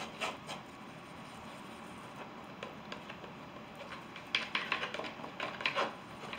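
Palette knife scraping and dabbing oil paint onto a canvas in short strokes: a few at the start, then two quick runs of strokes a little past the middle.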